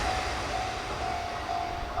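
Nishitetsu 9000 series electric train running away from a level crossing, its rumble fading. A crossing warning bell sounds a repeated ringing tone over it.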